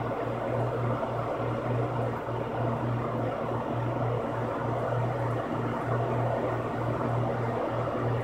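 Box fan running: a steady rush of air over a low motor hum that wavers slightly.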